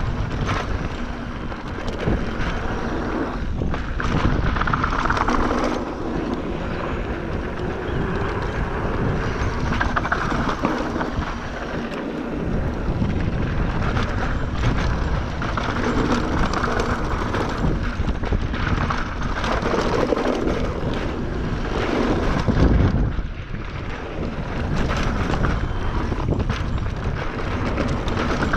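Wind rushing over the microphone, with the continuous rumble and rattle of a mountain bike riding down a rough downhill trail.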